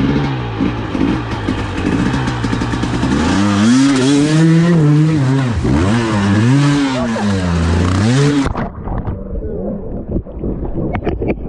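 A two-stroke enduro motorcycle engine revving hard, its pitch rising and falling repeatedly as the throttle is worked, then cutting out suddenly about eight and a half seconds in.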